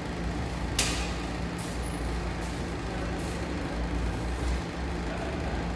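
Steady low hum and noise, with a sharp click about a second in and a few short, fainter hisses after it.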